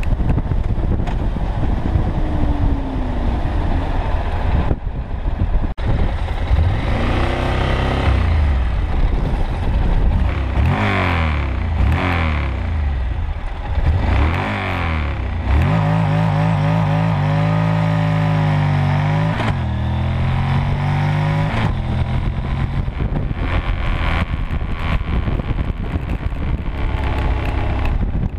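Honda NC700X's 670 cc parallel-twin engine accelerating through the gears, heard from the fuel tank, with wind noise. The engine note climbs and drops back several times about a third of the way in, as if at each gear change, then holds steadier.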